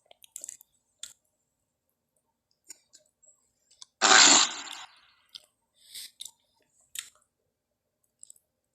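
Pachycephalosaurus movie sound effect: one short, loud, noisy call about four seconds in, with scattered small clicks and snorts before and after it.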